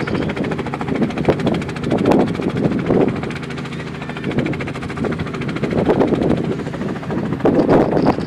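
Robinson R44 Clipper II helicopter running on the ground, its Lycoming six-cylinder engine and two-bladed main rotor turning with a rapid, steady beat that swells and fades in loudness.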